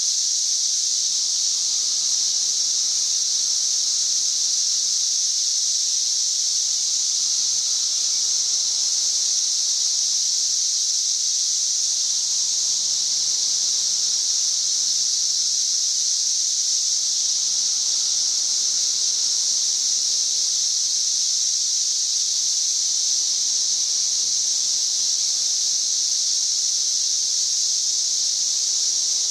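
Cicada chorus: many cicadas singing together in a loud, steady, high-pitched drone that does not let up.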